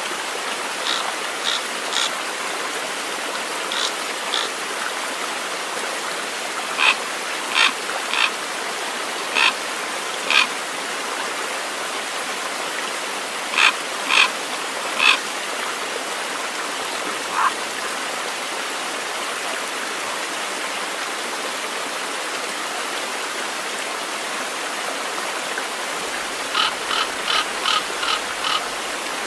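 Steady rush of a stream, with short high calls from an unseen animal every few seconds, singly and in twos and threes, and a quick run of about seven calls near the end.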